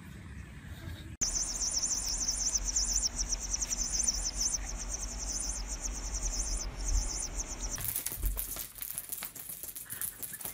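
High, rapid, evenly pulsed chirping like a cricket's, over a low hum; it cuts off abruptly about eight seconds in, giving way to rough rustling noise.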